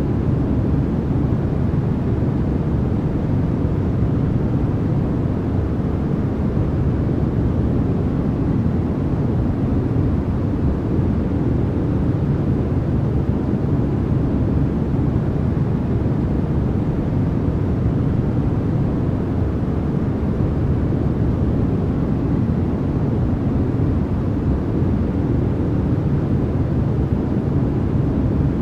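Steady white-noise track for sleep: an even, unchanging rush, deep and strongest in the bass, with little hiss up high.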